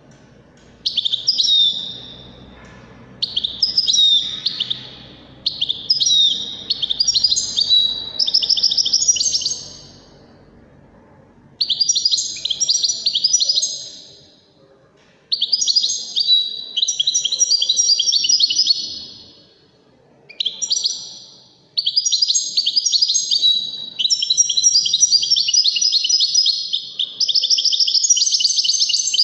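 European goldfinch singing: fast, high twittering and trilled phrases of a few seconds each, broken by short pauses. In the last third it runs into one long unbroken stretch of song.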